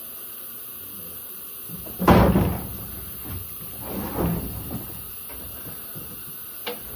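Knocks and scraping from hand tools at work on a mower deck's gear drive box: one loud clunk about two seconds in, then softer knocks and scrapes a couple of seconds later, over a steady hiss.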